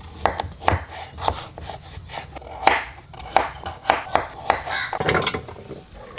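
Kitchen knife chopping a raw carrot on a wooden cutting board: about a dozen uneven, sharp knocks as the blade cuts through and strikes the wood.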